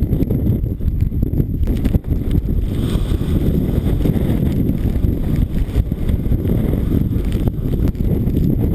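Strong mountain-top wind buffeting the microphone: a loud, low, gusting rumble that never lets up.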